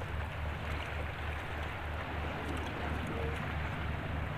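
Pump boat's engine running with a steady low throb, about four to five beats a second, under a steady hiss of wind and water.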